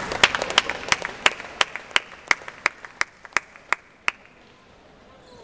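A table tennis ball bounced steadily on a bat or the table, about three sharp pinging taps a second, which stop about four seconds in.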